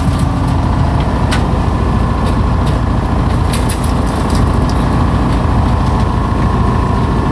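Boat motor idling steadily, a loud low rumble throughout. A few light metallic clinks, from the wire crawfish trap handled on the aluminium diamond-plate deck, sound over it.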